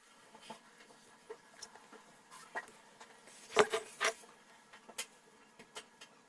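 Scattered small clicks and scratches of tools and parts being handled on a car computer's circuit board while its capacitors are being replaced, with two sharper clicks a little after the middle.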